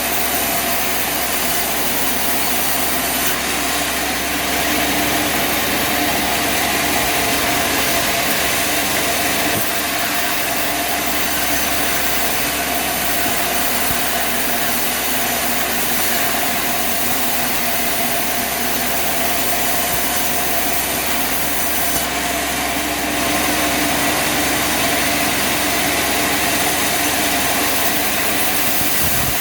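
An engine running steadily under a constant hiss, with no breaks.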